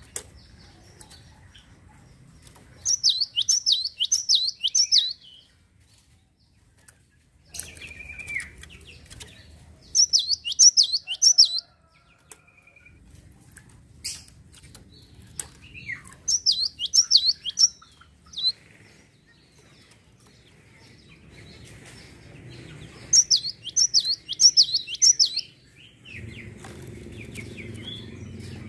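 A gelatik songbird singing in four bursts of quick, high, down-slurred notes, each burst lasting one to two seconds, with short pauses between them. A low rumble comes in near the end.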